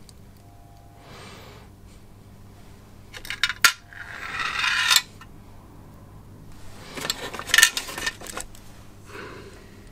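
Small clicks and clinks of tiny metal and plastic parts being handled and fitted as an N gauge locomotive chassis is reassembled. There is a short rising scrape about four seconds in that cuts off sharply, and another cluster of clicks around seven to eight seconds.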